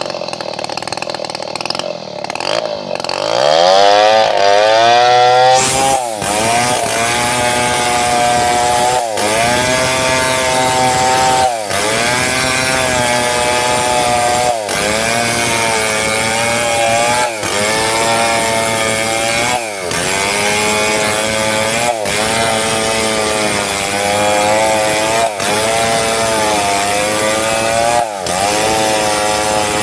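Two-stroke chainsaw revving up to full throttle a few seconds in, then running hard while ripping a mahogany log lengthwise. The engine pitch dips briefly and recovers about every two and a half seconds.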